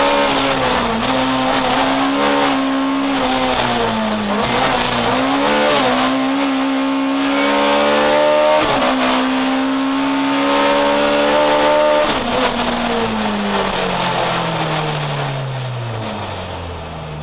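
Race car engine heard from inside the cabin, held at high revs, its pitch dipping and recovering several times with gear changes and the throttle. Over the last few seconds the revs fall steadily as the car slows.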